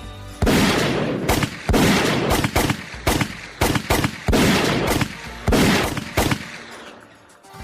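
Gunfire sound effects: an uneven volley of about ten gunshots, each with a short reverberant tail.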